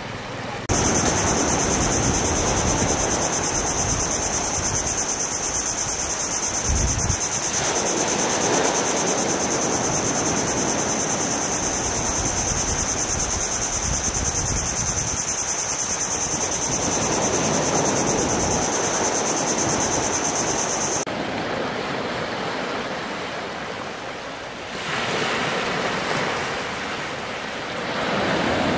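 Small waves breaking and washing up on a sandy beach, with wind on the microphone. For most of the time a loud, steady high-pitched buzz sits over the surf and cuts off suddenly about three-quarters of the way through. After that, two waves can be heard washing in near the end.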